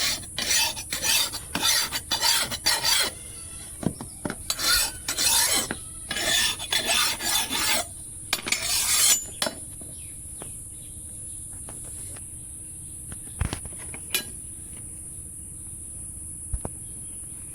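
Hand file rasping back and forth on the steel blade, in quick scratchy strokes in several runs. The filing stops about nine seconds in, and a few sharp knocks follow.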